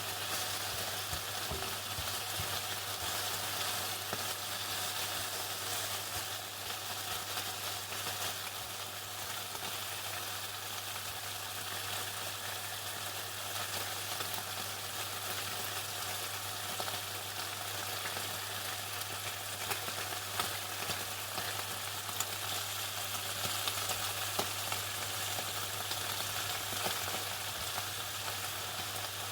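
Chicken deep-frying in hot oil: a steady, dense crackling sizzle with scattered sharper pops, over a steady low hum.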